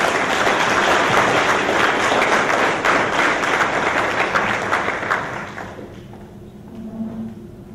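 Audience applauding, a dense patter of many hands clapping that dies away about five to six seconds in.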